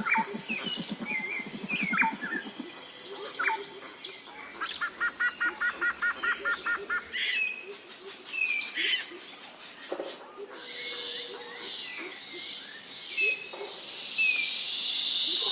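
Birds chirping and calling over a steady high insect drone, with a low pulsing call in the first two seconds and a quick run of about a dozen repeated notes about five seconds in.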